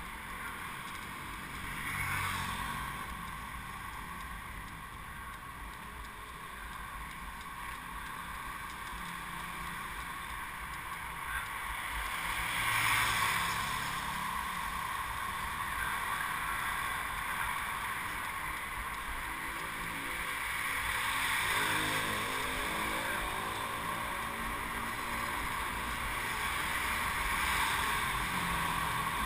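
Steady wind rush on the microphone of a bicycle-mounted action camera while riding along a road, mixed with the engines of passing motorcycles and cars.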